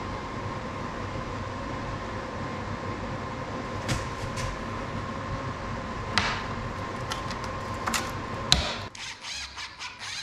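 Cabinet assembly in a woodshop: a steady machine hum under a few sharp clicks and knocks as plywood panels are set together and a locking C-clamp is closed, the loudest click about eight and a half seconds in. Near the end a cordless drill drives a pocket-hole screw in a quick run of short pulses.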